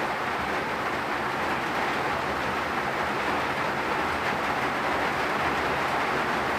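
Steady rain: an even, unbroken hiss with no separate drops or hits standing out.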